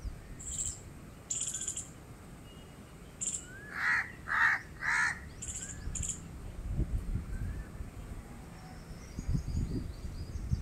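A crow cawing three times in quick succession, about half a second apart, with short high chirps from small birds around it.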